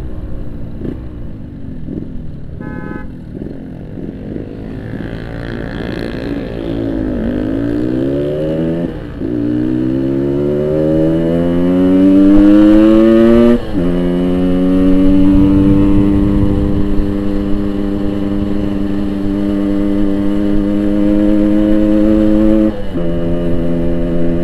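Yamaha RX-King 135cc two-stroke single running through a Boban aftermarket exhaust while riding. The engine climbs in pitch under acceleration, drops suddenly at an upshift about halfway in, holds a steady note, then drops again at a second upshift near the end.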